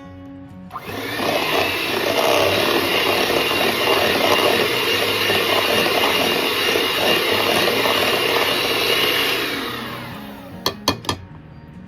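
Electric hand mixer beating the first cup of flour into a butter and egg dough in a bowl. It starts about a second in, runs steadily, and winds down near the end, followed by a few quick clinks.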